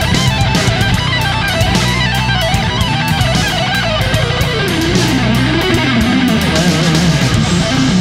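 Instrumental rock music: a driving electric guitar melody over a steady drum beat.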